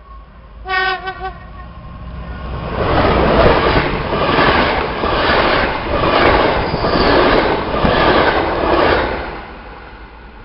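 A locomotive-hauled passenger train gives a short horn blast about a second in, then passes close by at speed. The wheels rush and clatter over the rails, with the noise swelling about once a second as each coach goes past, and it fades near the end.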